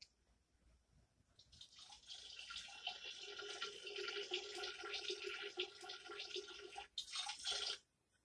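Sound effect of a stream of liquid splashing, heard as two people urinating against a wall, played through a TV. It builds up over the first two seconds and runs steadily, stops abruptly about seven seconds in, then a short last spurt follows for under a second.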